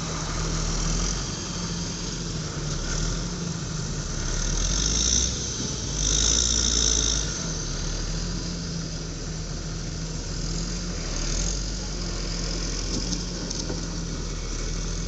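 CAT motor grader's diesel engine running steadily as the grader moves along grading the gravel sub-base bed. A high-pitched squeal comes in around five seconds in and lasts about two seconds, with the engine rumble louder at the same time.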